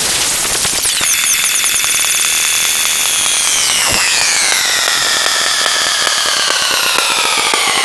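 Heavily processed synthetic sound effect: a cluster of shrill high tones sliding slowly downward in pitch, with one sweep diving and rising again about halfway through, over a fast crackling buzz.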